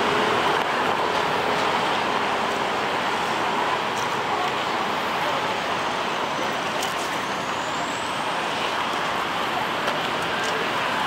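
Steady city road traffic: an even wash of noise with no single vehicle standing out.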